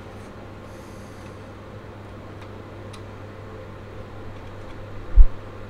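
Faint small clicks of a plastic scale model's engine-cover panel being handled and lifted, over a steady low room hum. About five seconds in, a single loud, dull low thump.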